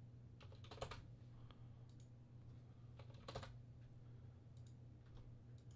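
A few faint, scattered clicks of a computer keyboard and mouse, over a low steady hum.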